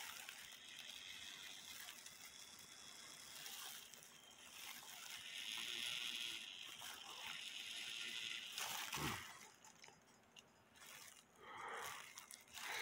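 Faint rustling of disposable plastic gloves handling a brass clock movement, with a light knock about nine seconds in.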